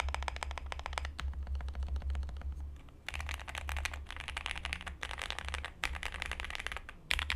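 Zoom65 mechanical keyboard, stock JWK switches with all its foams in, typed on fast with both hands: a dense, continuous run of key clacks, with a brief lull about three seconds in.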